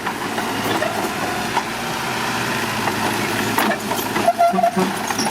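Mitsubishi BD2H bulldozer's diesel engine running steadily, with a few sharp cracks about three and a half to four and a half seconds in.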